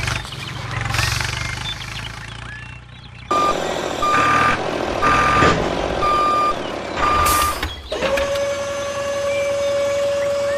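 A vehicle's reversing alarm beeping about once a second, five beeps over running engine noise, starting abruptly about three seconds in after a stretch of engine noise alone. Near the end the beeping stops and a steady single tone takes over.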